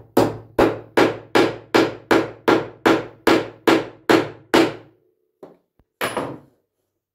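Hammer striking a pine panel, about a dozen evenly paced blows at two to three a second, then one last blow after a short pause, pressing glued nuts into their holes in the wood.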